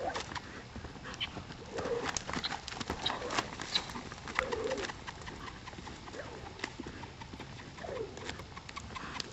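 Hoofbeats of a saddled chestnut horse trotting and cantering in circles on soft arena dirt: irregular dull knocks, with a short low call every two to three seconds.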